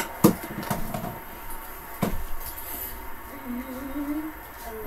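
A few sharp knocks in the first two seconds, the loudest just after the start, then a person humming softly for about a second near the end.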